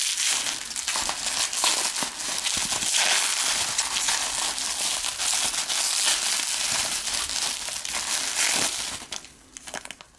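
Plastic bubble wrap crinkling and crackling as it is pulled open and unwrapped by hand. The dense rustling runs for about nine seconds, then thins out and stops near the end.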